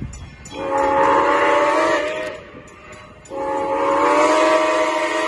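Steam locomotive's chime whistle blowing, several tones at once: one long blast, then a second long blast that is still sounding at the end.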